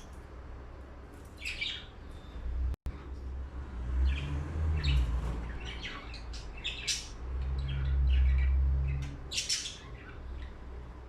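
Lovebirds giving short, high chirps in quick runs, over a low rumble that swells twice.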